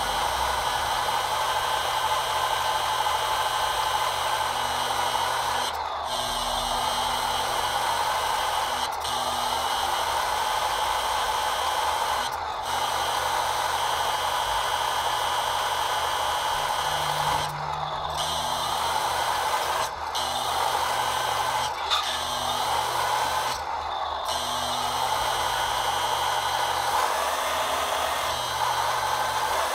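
Electric hydraulic pump of an RC model truck's loading crane running as the crane slews, lowers and grips a pallet. Its whine dips and recovers in pitch at times and cuts out briefly several times between crane movements.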